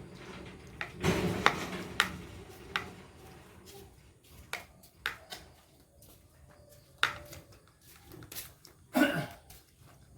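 Cutlery clinking against dishes during a toddler's meal: a scatter of sharp, irregular clicks, with a brief lower sound near the end.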